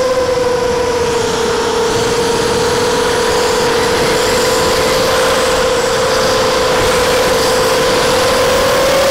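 Brushless motors and 5x4.5 propellers of a ZMR250 FPV miniquad (DYS BE1806 2300kv) whining steadily in flight over a rush of air. The pitch sags slightly about a second in and climbs again near the end as the throttle changes.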